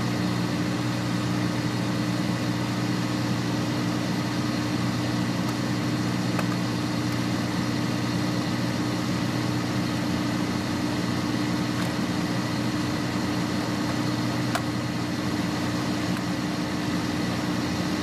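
A steady mechanical drone with a low hum, running evenly without change, with a few faint clicks over it.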